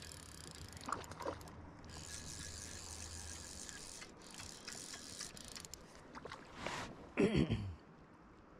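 Fly reel clicking and ratcheting as a hooked whitefish is played and reeled in, over a steady hiss of river water. A brief louder sound comes near the end.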